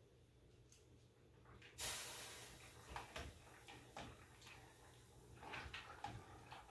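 Faint household handling sounds: a short hiss about two seconds in, then scattered light knocks and clicks, like cupboards, doors or utensils being moved.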